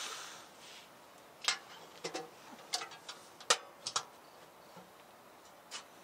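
Irregular sharp clicks and snaps, about a dozen, clustered in the middle seconds, with a brief hiss at the start.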